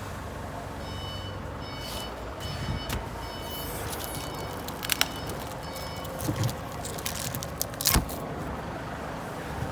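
Steady background noise with a high electronic beep repeating in short pulses, roughly every two-thirds of a second, through the first six seconds, and a few sharp clicks later on.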